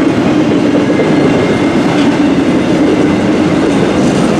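Freight train cars, autoracks among them, rolling past: a loud, steady rumble of wheels on the rails with some clickety-clack.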